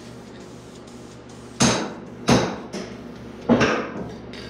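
Aerosol can of sandable primer sprayed in three short bursts, each a sharp hiss that starts suddenly and dies away within about half a second.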